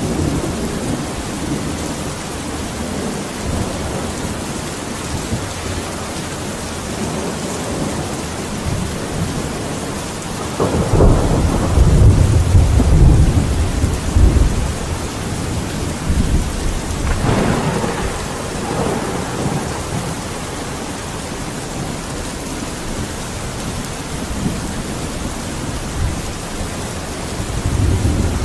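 Steady rainfall with rolling thunder. A long, loud low rumble comes about ten seconds in, a sharper clap with a rumble follows a few seconds later, and another rumble begins near the end.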